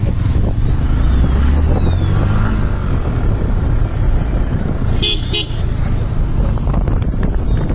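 Road vehicle in traffic: steady low engine and road noise, with a vehicle horn tooting twice in quick succession about five seconds in.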